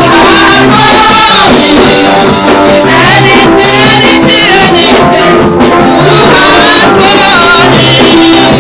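Loud gospel praise-and-worship music: voices singing a melody over held keyboard notes, with hand percussion.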